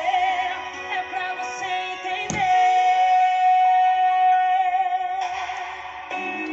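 Background song with a singing voice. About two seconds in, the voice holds one long note for roughly three seconds, and then the music goes on.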